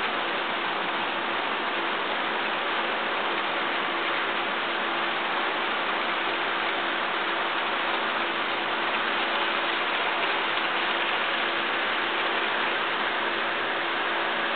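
Model train of tank cars rolling past on the layout's track: a steady rushing clatter of wheels on rail, with a faint even hum underneath.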